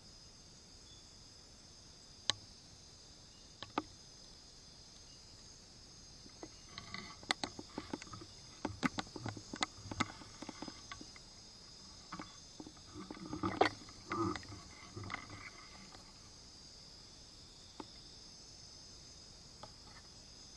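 Steady shrill chorus of forest insects, with scattered sharp clicks and, from about six seconds in, a stretch of irregular rustles and knocks that peaks in loudness about two-thirds of the way through before the insects are left alone again.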